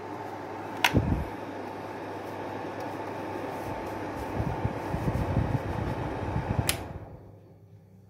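Braun slide projector's cooling fan running with a steady hum. A sharp click about a second in is followed by a low thud, then several low bumps. Near the end another click switches it off, and the fan hum runs down and fades out.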